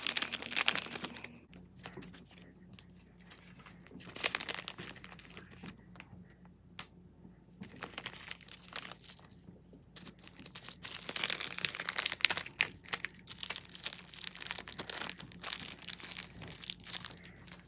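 Thin clear plastic bag crinkling and rustling in the hands as it is opened to unpack a metal cabinet hinge. The rustling comes in irregular spells, busiest near the start and through the second half, with one sharp click about seven seconds in.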